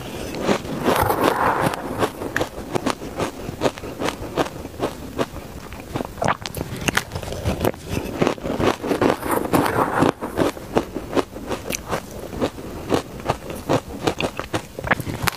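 Close-miked mouthfuls of shaved ice heavily coated in purple sweet potato powder being bitten and chewed: a dense run of crisp, rapid crunches and crackles without let-up.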